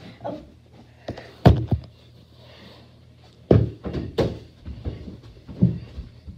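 A string of dull thumps from a beach ball being kicked around a hallway and feet landing on the floor. The loudest thump comes about a second and a half in, with two more close together in the middle and a last one near the end.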